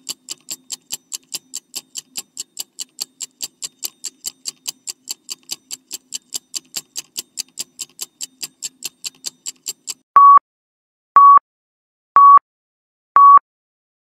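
Quiz countdown-timer sound effect: clock-like ticking at about four ticks a second for ten seconds, then four short high beeps a second apart as the last seconds run out.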